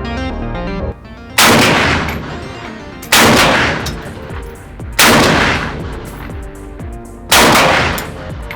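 Single shots from a Draco AK pistol, four of them about two seconds apart, each loud bang followed by a long echoing decay. Music cuts off about a second in, just before the first shot.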